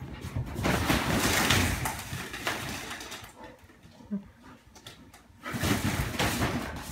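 A bull terrier scrambling through a nylon pop-up play tent and tunnel, the fabric rustling and scuffing in two spells, one in the first couple of seconds and another near the end.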